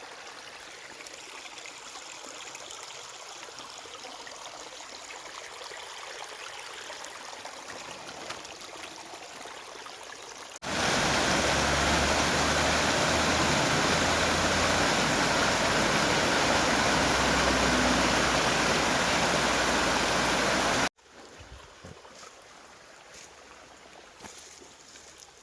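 Stream water running steadily. About ten seconds in, the rush becomes much louder, then drops back abruptly about ten seconds later, leaving a quieter flow with a few faint clicks.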